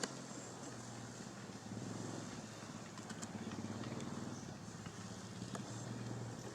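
An engine running steadily, a little louder for a couple of seconds in the middle, with a few faint clicks.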